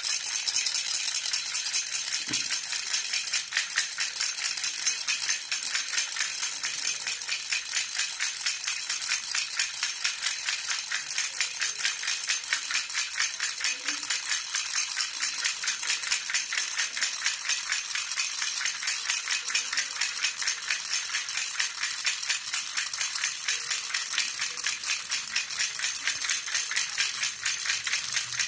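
Jhunjhuna (baby rattle) shaken steadily, giving a continuous, rapid, even rattling with a bright, high-pitched jingle.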